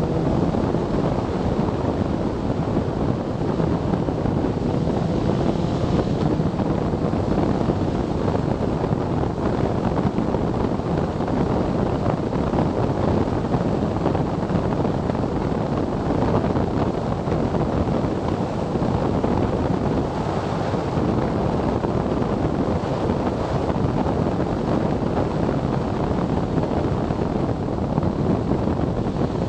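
Steady wind rush over the mounted camera's microphone on a BMW K1300S motorcycle riding at about 40 to 70 mph, with no sudden changes.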